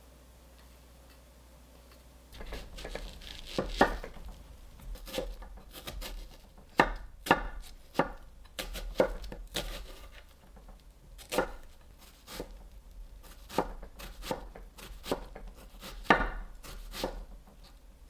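Kitchen knife chopping vegetables on a cutting board, starting about two seconds in: slow, uneven single cuts, roughly one a second.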